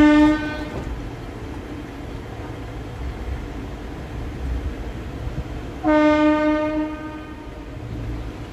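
Train horn sounds twice over the steady rumble of the moving train: the end of one blast right at the start, then a second blast about six seconds in that lasts about a second.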